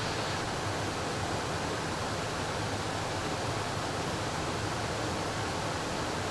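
Steady hiss of cockpit noise in a Beechcraft Premier jet flying at 13,000 ft, an even rush of air and engine sound with no change.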